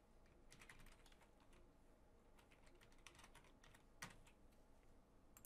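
Faint typing on a computer keyboard: two quick runs of keystrokes, then a single louder click about four seconds in.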